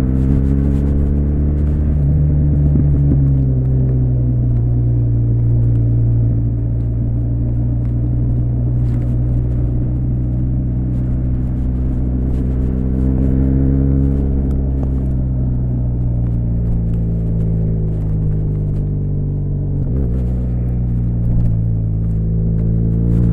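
BMW R1200RS's air/liquid-cooled boxer twin running under way, its pitch rising and falling several times as the throttle is opened and eased off. There is one short knock about twenty seconds in.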